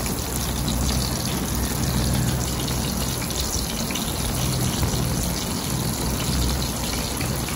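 Egg-and-oat-coated banana pieces deep-frying in hot oil: a steady sizzle with fine crackling, and a low hum underneath.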